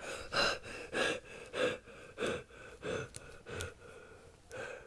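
A person's voice making a run of about seven short voiced gasps, roughly one every two-thirds of a second, like panting or sobbing, growing fainter toward the end.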